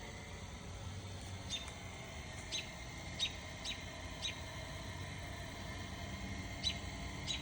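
Short high chirps, about a dozen at irregular intervals, over a steady low background hum.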